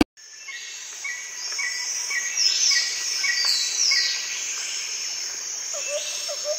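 Night-time outdoor ambience of insects and crickets, with a short chirp repeating about twice a second and a few bird calls sweeping down in pitch. It fades in over the first couple of seconds.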